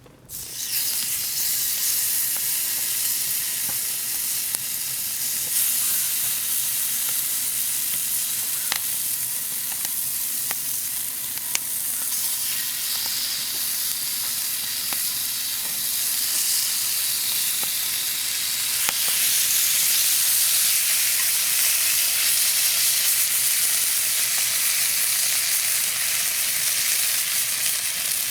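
Meat sizzling loudly on a hot cooking surface over a campfire. The sizzle starts suddenly about half a second in as the meat goes on, then carries on steadily with a few sharp pops.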